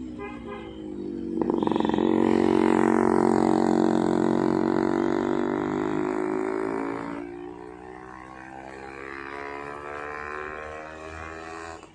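A motor-vehicle engine droning under load, probably a bus or car working through the hairpin, loudest for the first several seconds with its pitch sagging slightly. About seven seconds in it drops back, then rises steadily in pitch before cutting off abruptly.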